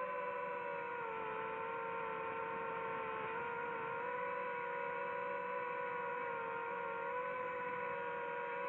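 Quadcopter drone's electric motors and propellers whining steadily, the pitch dipping and rising slightly as the throttle changes.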